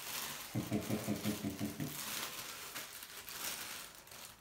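Clear plastic bag crinkling and rustling as a statue part is handled and unwrapped from it, with tissue-paper rustling near the end. A man's voice briefly murmurs, without words, from about half a second to two seconds in.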